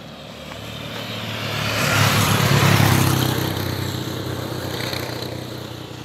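A motor vehicle driving past on an asphalt road: engine hum and tyre noise swell to a peak about two to three seconds in, then fade away.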